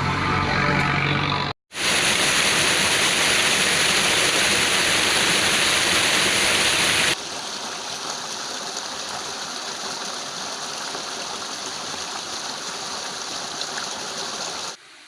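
Rushing water of a forest waterfall running low. It comes in two spliced takes: a loud, close rush for about five seconds, then a quieter rush after a sudden cut. Before the first cut, an engine-like hum is heard for about a second and a half.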